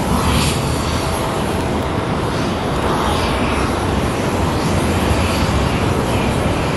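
Airliner engine noise: a steady, loud noise with a heavy low end that holds throughout.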